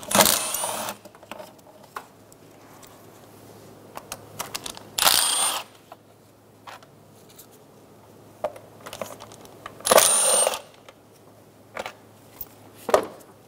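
Cordless power driver with a hex bit spinning out engine-cover bolts in three short runs, each under a second and about five seconds apart, with light clicks and taps of the bit and bolts in between.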